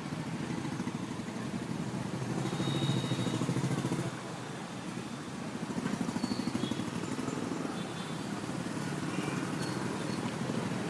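City street ambience: a steady traffic rumble that swells twice as vehicles pass, with faint short high tones over it.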